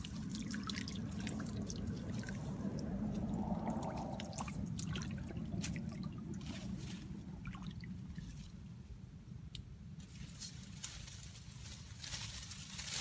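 Small splashes, drips and trickles of shallow muddy water stirred by bare feet wading and a hand reaching in, busier in the first half.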